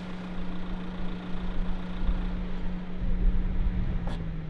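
Car on the move: a steady engine hum over low road rumble, the engine note dropping near the end as it slows, with a short knock just before.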